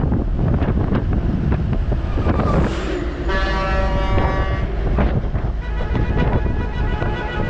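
Vehicle on the move with heavy wind buffeting on the microphone, and a vehicle horn sounding for just over a second about three seconds in.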